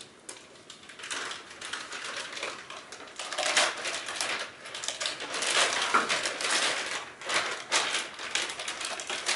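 Plastic packaging crinkling and rustling as a graphics card is unwrapped from its bag by hand: irregular crackles, sparse at first, then denser and louder from about three seconds in.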